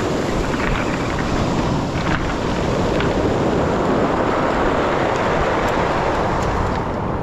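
Surf breaking and washing over a pebble beach, with wind buffeting the microphone; a steady rush of noise.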